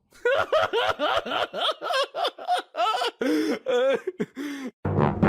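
A person laughing hard in quick, high-pitched bursts. Brass music starts just before the end.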